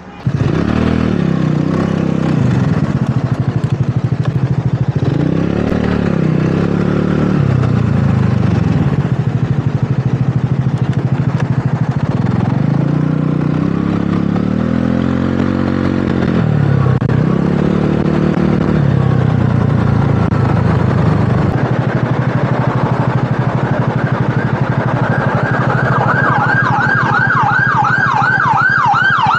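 Wolf Rugby 150cc scooter engine running as it rides off, its engine speed rising and falling several times with the throttle. Near the end an emergency-vehicle siren starts up in a fast rising-and-falling yelp, about three cycles a second.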